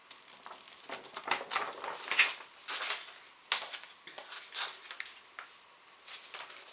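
A large paper poster sheet being folded up by hand: repeated crinkling and rustling of paper in quick, uneven bursts, easing off near the end.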